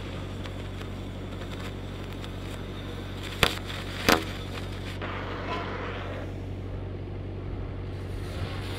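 Cutting torch hissing steadily as it cuts a saddle into the end of a used steel pipe. Two sharp pops a little over half a second apart come about midway, and the hiss swells for a moment shortly after. A steady low hum runs underneath.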